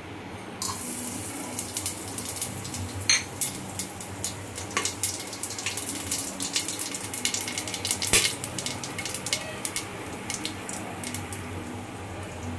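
Whole spices (cumin seeds, cinnamon, black cardamom and cloves) dropped into hot mustard oil in a pressure cooker. The oil starts sizzling suddenly about half a second in and carries on with a crackle of popping seeds and a few sharper clicks. This is the tempering stage of the curry, with the oil hot enough to fry the spices at once.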